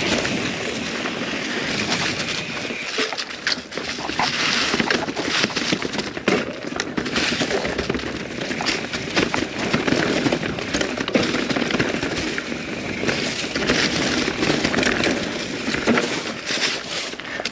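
Norco Sight full-suspension mountain bike riding down a rough dirt trail: constant tyre noise on the ground with crackling and rattling, and many sharp knocks as it hits bumps.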